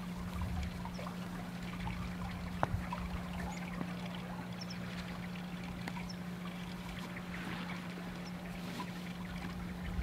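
Faint outdoor background: a soft trickling-water-like hiss under a steady low hum, with a single sharp tick a little over two and a half seconds in and a few faint, high chirps.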